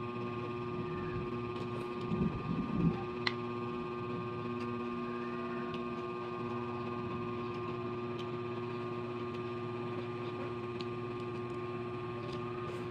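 A steady electrical hum with several fixed tones runs throughout. Brief low mouth sounds come about two to three seconds in, followed by a single sharp click and a few faint ticks.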